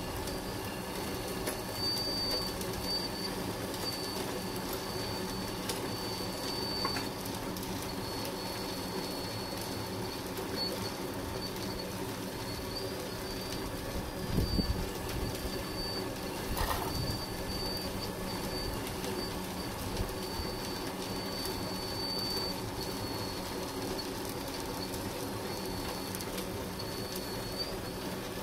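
Lesu PC360 RC hydraulic excavator working: its pump and motors give a steady hum with a thin high whine above it as it digs and swings. A couple of brief knocks about halfway through.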